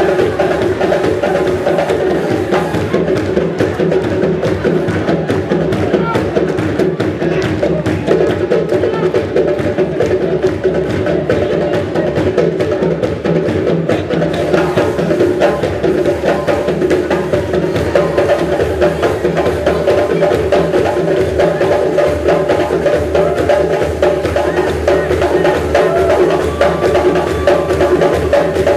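Live African percussion music: fast, dense, steady drumming and hard knocking strokes over a sustained pitched melody line.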